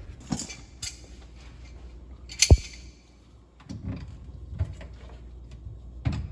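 Knocks and clicks of hands working on the sink's drain fittings under a kitchen sink cabinet, with one loud sharp clack about two and a half seconds in.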